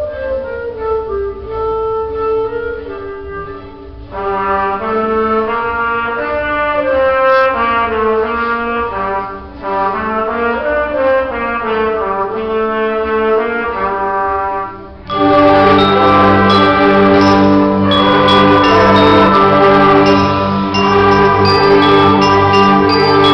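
Live instrumental music: wind instruments playing a sustained melody, with more parts joining about four seconds in, then a sudden, much louder and fuller ensemble passage from about fifteen seconds in.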